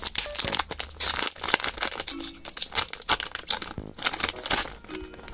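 The shiny foil wrapper of a Japanese Pokémon card booster pack is torn open by hand. It crinkles with a dense run of sharp crackles as the cards are pulled out of it.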